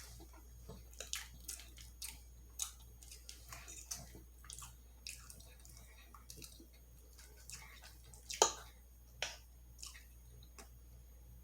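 Wet mouth smacks and clicks of someone chewing food close to the microphone, scattered irregularly, the loudest about eight and a half seconds in.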